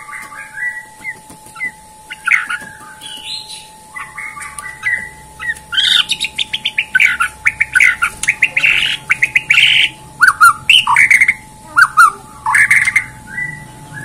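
White-rumped shama (murai batu) singing a loud, varied song of whistled phrases, rapid chattering runs and harsh squawky notes, getting busier and louder after the first few seconds.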